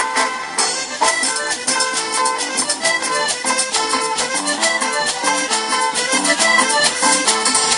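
Live cumbia band playing a dance number, a steady percussive beat under a sustained melodic lead.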